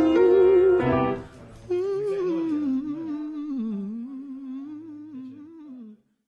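A recorded song with vocals ends abruptly about a second in. Then a man hums a slow, wavering tune on his own, growing fainter until it stops about six seconds in.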